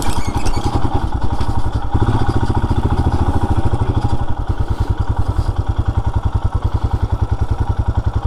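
Royal Enfield Himalayan's single-cylinder engine running at low revs on a slow roll, with an even exhaust thump of about ten beats a second. It settles to an idle about halfway through.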